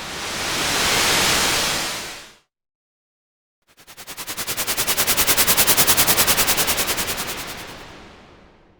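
White-noise sound effects: a full hiss swells and fades out about two and a half seconds in. After a second of silence, a hiss chopped into rapid, even pulses swells up and fades away.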